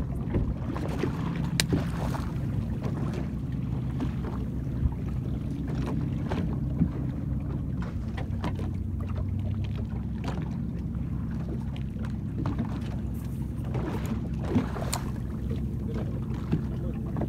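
Small fishing boat's engine running steadily, a low drone, with scattered light clicks and knocks on top.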